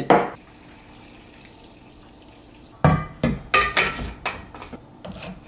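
A ceramic plate set down on a wooden table with a knock. After a pause, a run of sharp plastic clicks and knocks as a water bottle and a shaker cup are handled and set down on the table.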